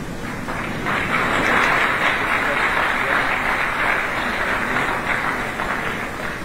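Crowd applauding, swelling about a second in and tapering off near the end.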